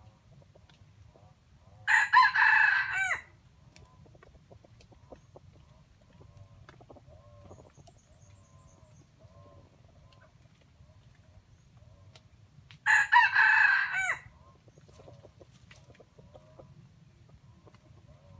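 Red junglefowl rooster crowing twice, about eleven seconds apart, each crow short, about a second long. Between the crows there are soft clucks.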